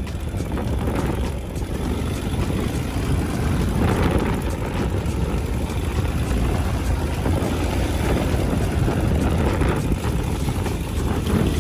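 Ural Gear-Up sidecar motorcycle's flat-twin engine running steadily while riding, mixed with road noise.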